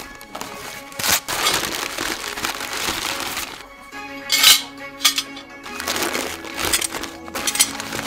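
Background music over newspaper packing rustling and crumpling, with metal fire pit parts clinking as they are lifted out of the wrapping. The longest stretch of crumpling comes early. Shorter rustles and clinks follow in the second half.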